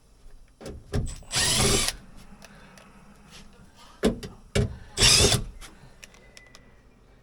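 Cordless power drill/driver spinning in two short runs of about half a second each, one a little over a second in and another about five seconds in, each preceded by a knock.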